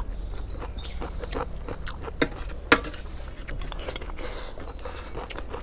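Metal spoons scraping and clinking against metal serving trays as fried rice is scooped up and eaten, with close-up chewing. There are two sharper clinks a little after the middle.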